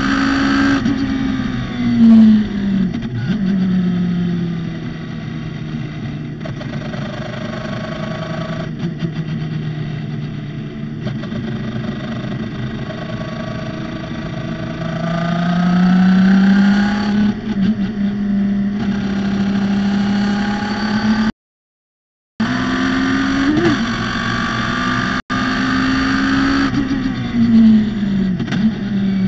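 Radical SR3 race car's motorcycle-derived four-cylinder engine on a lap, its note falling sharply under braking about two seconds in and again near the end, and climbing under acceleration just past the middle. The sound cuts out completely for about a second shortly after the middle.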